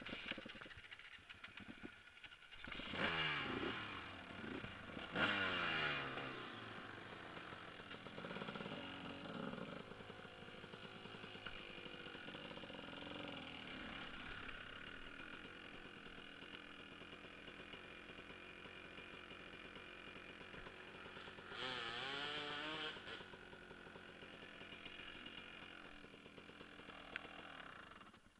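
Dirt bike engine revving sharply twice, about three and five seconds in, then running steadily at low speed, with another burst of revs about 22 seconds in.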